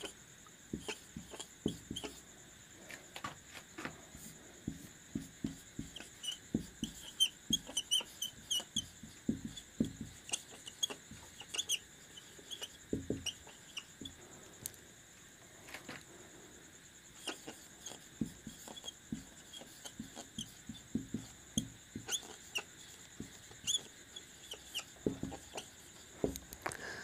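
Marker pen writing on a whiteboard: faint, irregular squeaks and taps of the felt tip in quick clusters of strokes, with short pauses between words.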